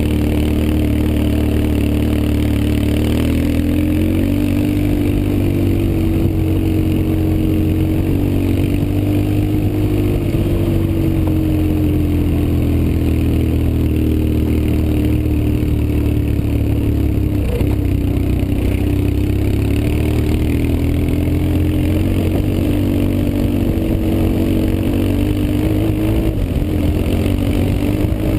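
BMW R 1150 GS flat-twin motorcycle engine running under way, its note rising and falling a little with the throttle.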